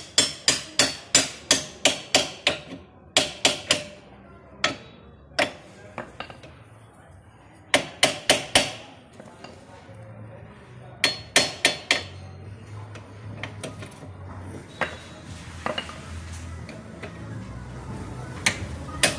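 A hand hammer striking a steel bolt in a Honda Pleasure scooter's bare steel frame, driving it down into its seat. The metal-on-metal blows come in quick runs of about four a second, broken by pauses, and turn fainter and sparser in the second half.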